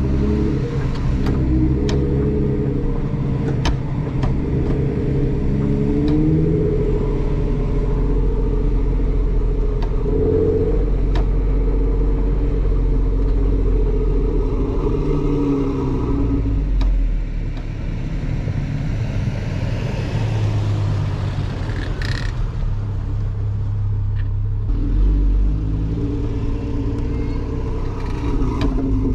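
Jeep Wrangler engine running at low speed close by, its pitch rising and falling with the throttle, over the rumble of tyres rolling on a gravel trail with scattered ticks of stones. The engine falls quieter for several seconds in the second half.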